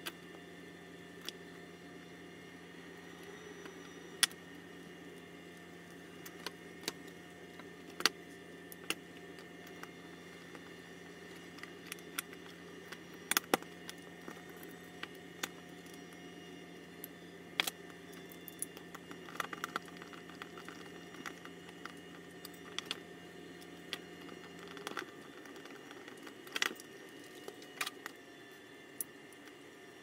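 Scattered small clicks and taps of plastic parts as the grey housing pieces of a pool cleaner's swivel cable unit are handled and fitted together on a workbench. A steady low hum runs underneath and its lowest part cuts out near the end.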